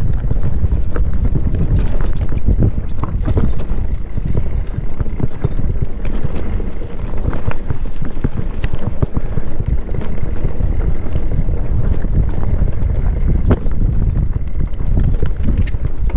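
Heavy wind buffeting the microphone in a continuous low rumble, with scattered short knocks and rattles throughout.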